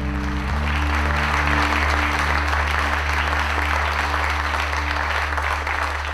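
Audience applauding, swelling up in the first second and running steadily. Underneath it, soft ambient music holds long low notes.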